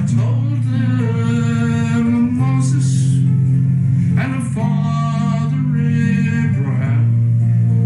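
A song: a voice singing long, held notes over acoustic guitar.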